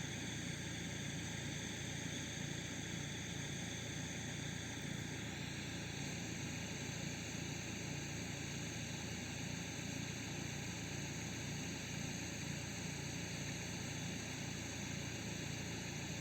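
Steady running noise of a passenger express train in motion, with no separate rail-joint clicks and a faint high whine above it.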